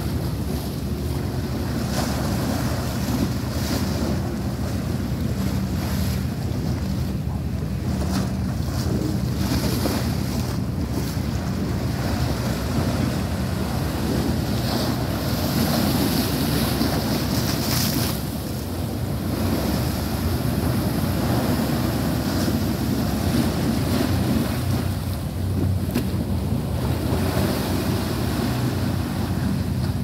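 Wind buffeting the microphone over choppy sea water washing against a concrete seawall, with a steady low hum underneath.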